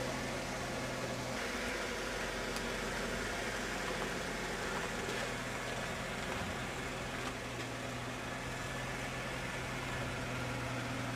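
A motor vehicle's engine idling steadily, a low hum that drops in level about a second and a half in and comes back up around six and a half seconds.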